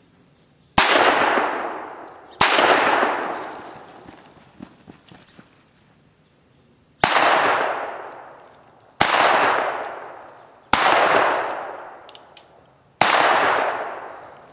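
Six shots from a Heritage .22 Magnum single-action revolver, each followed by a long fading echo: two about a second and a half apart, then after a pause of about four seconds, four more roughly two seconds apart.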